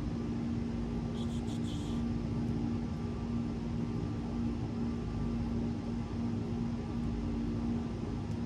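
Steady mechanical hum with a low tone, and a short run of light clicks about a second in.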